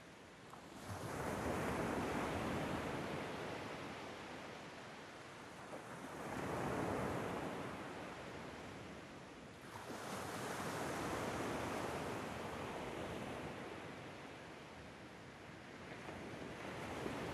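Ocean waves washing in and drawing back, a slow swell of surf every four to five seconds.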